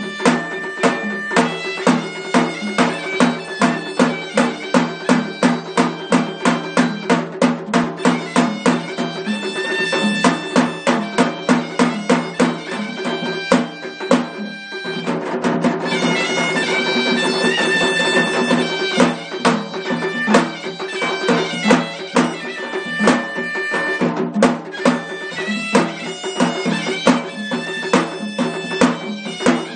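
Traditional music: a shrill, nasal reed pipe plays a melody over fast, steady drumming, and the drumming eases for a few seconds midway.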